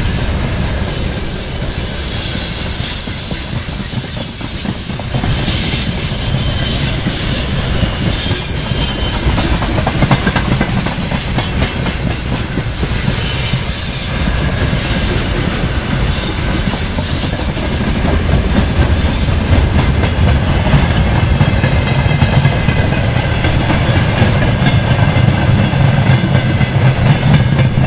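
Freight train's open gondola wagons rolling past: wheels clattering over rail joints with a steady rumble, and brief high wheel squeals now and then. The rumble grows louder over the last third as the end of the train passes.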